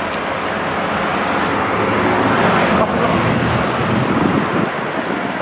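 A car driving past on the street, its engine and tyre noise swelling to a peak about halfway through and then fading.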